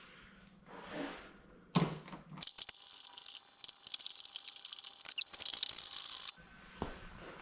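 Hands handling installation parts: a single knock about two seconds in, then a few seconds of crinkling, crackling handling noise with many small clicks and scrapes, which stops suddenly.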